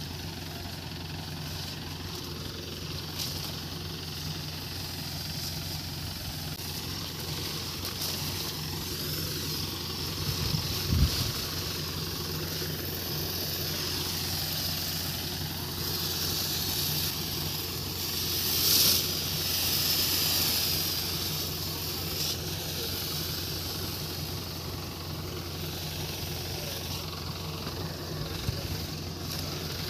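Tractor engine running steadily while a pesticide sprayer hisses on top of it. The hiss swells briefly about two-thirds of the way through, and there is a single thump partway in.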